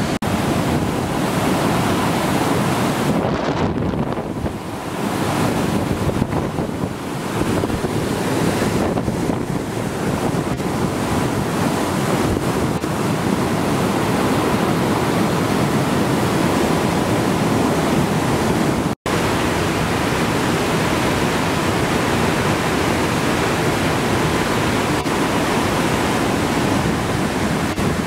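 River in flood: a loud, steady rush of floodwater pouring over a weir and churning downstream, with a sudden short break about two-thirds of the way through.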